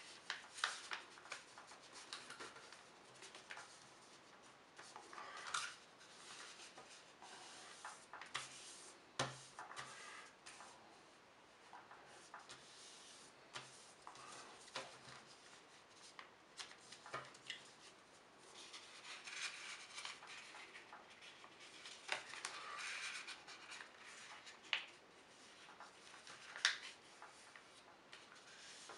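Sheet of paper being folded by hand: irregular faint rustling as fingers rub along the folds to press the creases flat, with a few sharp crinkles.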